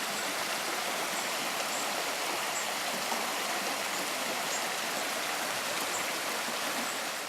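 Stream water rushing steadily over stones, a continuous even rush.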